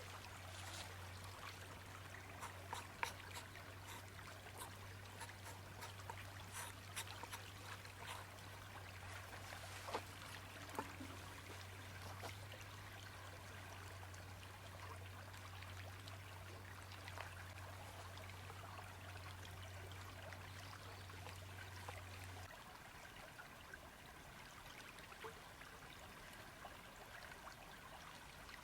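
A river flowing steadily, with scattered light clicks and taps in the first half. A faint low hum stops abruptly about three quarters of the way through.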